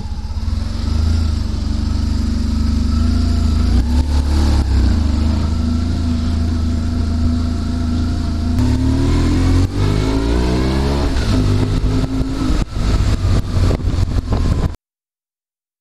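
Motorcycle engine running and pulling away, the revs climbing about four seconds in and again past the middle. It cuts off abruptly to silence about a second before the end.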